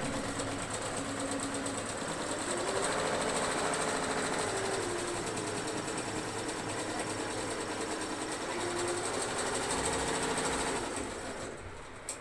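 HSW single-head 12-needle computerized embroidery machine stitching at speed: a fast, steady clatter of the needle bar and the drive motor's hum. It gets quieter in the last second or so.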